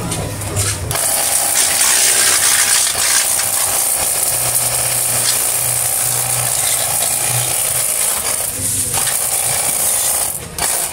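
Cordless battery-powered pressure washer running: a steady hiss of water spray over the hum of its small pump motor. It starts about a second in and cuts off shortly before the end.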